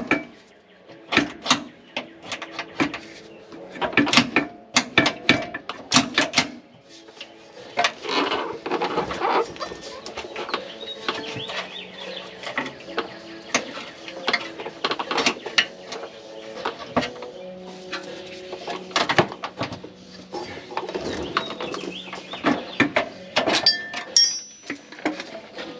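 Irregular metallic clinks, taps and knocks of hand tools and parts as a rear shock absorber is fitted to its axle mount under a van.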